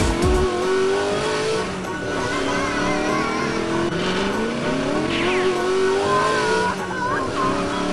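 Electronic engine-revving sound effects from arcade machines, rising in pitch again and again, over a jumble of other electronic game tones; beat-driven music stops about half a second in.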